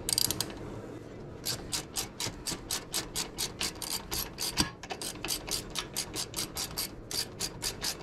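Hand ratchet with a 13 mm socket being worked back and forth to unscrew a brake caliper bolt, its pawl clicking in a steady run of about four to five clicks a second after a few quick clicks at the start. A single knock comes about halfway through.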